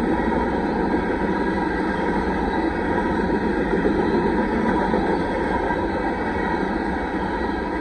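Covered hopper cars of a freight grain train rolling past close by: a steady, loud noise of steel wheels running on the rails.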